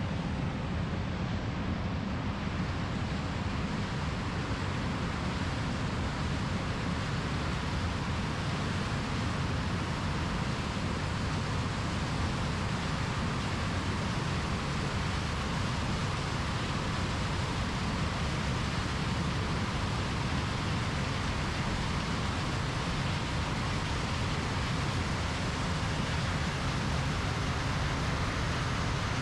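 John Deere combine harvester running steadily while harvesting corn: a continuous low engine rumble under an even hiss from the machinery.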